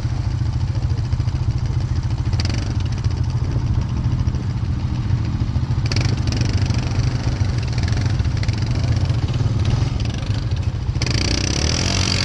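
ATV engine running at a steady throttle as the quad is ridden over a muddy trail, with a constant low drone. Short bursts of hiss come over it a few times, the longest near the end.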